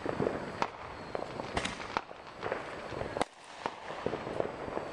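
Fireworks going off: about ten irregular bangs and pops, some overlapping, with the sharpest crack about three seconds in.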